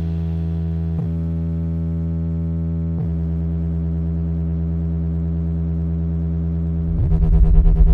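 Background music: sustained synthesizer chords that shift about a second in, again around three seconds, and near the end, where the music swells louder.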